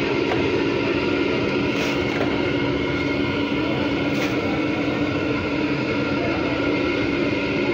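Burner with a forced flame under a large kadhai of frying pooris, running steadily with a constant hum over a rushing noise. Two brief clatters, about two and four seconds in, as batches of fried pooris are lifted out with the ladle.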